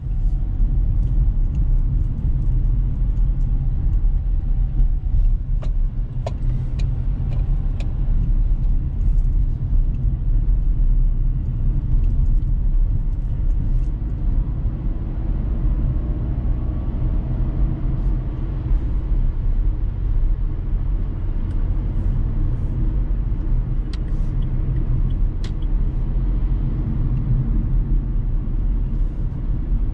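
A Dacia Sandero Stepway on the move, heard inside the cabin: its 1.5 dCi four-cylinder turbodiesel and tyres give a steady low rumble, with faint engine tones that rise and fall as the speed changes. A few light clicks come and go.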